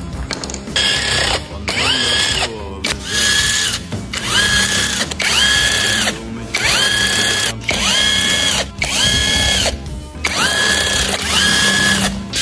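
Handheld power tool running bolts out during an engine teardown, in about ten short runs of roughly a second each. Each run rises in pitch, holds, then drops away.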